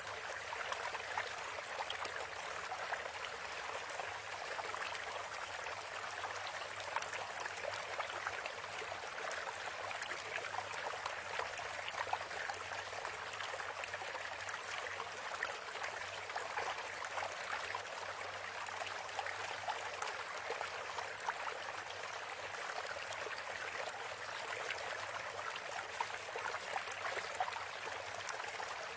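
Steady running-water noise like a trickling stream, an even splashing hiss dense with fine crackles that never pauses or changes.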